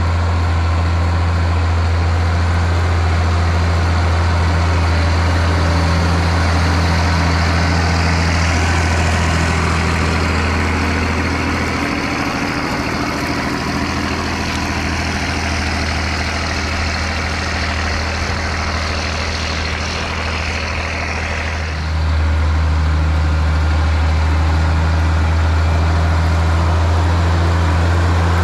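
International Harvester 5088 tractor's 7.1-litre turbocharged six-cylinder diesel engine running steadily under load while pulling a five-bottom moldboard plow. The drone drops a little for a stretch in the middle, then comes back louder suddenly about three-quarters of the way through.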